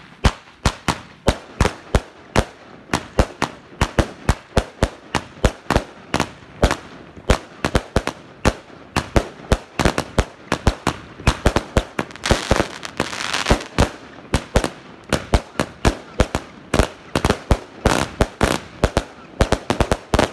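Consumer firework batteries firing a rapid, unbroken series of aerial shells, sharp bangs about three a second. A stretch of crackling hiss from crackle stars comes a little past halfway.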